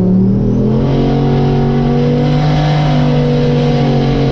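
Old pickup drag truck's engine pulling hard under throttle on a test run. The pitch drops a little in the first second, then holds steady and loud, with the torque converter holding rather than flaring.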